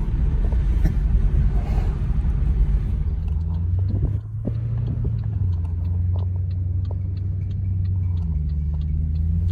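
Car engine idling through a freshly fitted, practically straight-piped 2.5-inch exhaust with an X-pipe and J-pipes and no mufflers: a deep, steady rumble that dips briefly about four seconds in.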